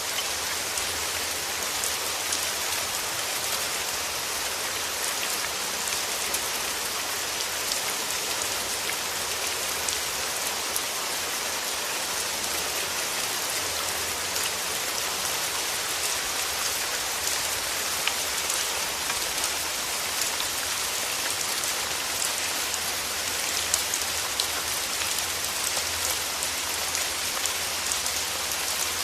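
Steady rain, a dense even hiss of many small drops landing, with no change throughout.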